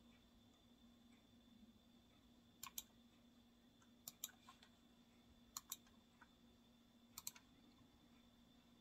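Faint pairs of small sharp clicks, four times at uneven gaps of about a second and a half, over a low steady electrical hum.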